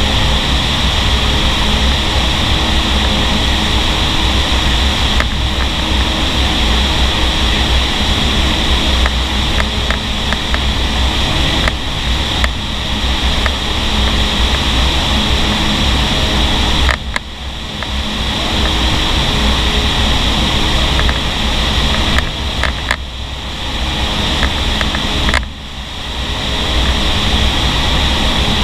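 Steady loud rush of fan-driven air through a vertical indoor skydiving wind tunnel, the airflow buffeting the microphone inside the flight chamber. The level drops briefly three times in the second half.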